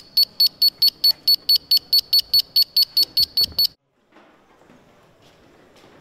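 Rapid high-pitched electronic beeping, an even beep roughly every fifth of a second, which cuts off abruptly a little under four seconds in, leaving faint room sound.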